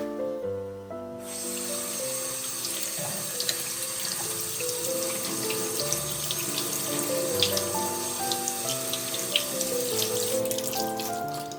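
Water running from a tap into a sink, splashing, starting about a second in and stopping near the end, over soft background music.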